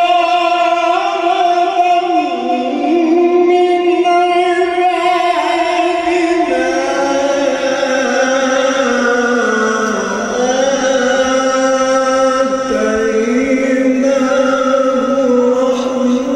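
A sheikh's solo religious chant: one male voice holding a single long, ornamented phrase on one breath, with slow turns in pitch and no instruments, easing off near the end.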